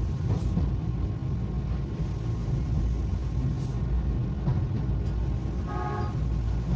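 Tokyu Setagaya Line 300-series light-rail car running along the track, heard from inside: a steady low rumble of motors and wheels on the rails. A brief high tone sounds about six seconds in.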